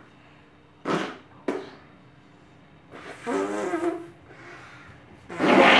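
Small children blowing raspberries against their forearms, making wet, fart-like lip noises. There are several in turn: two short ones about a second in, a longer wavering one around three seconds in, and the loudest near the end.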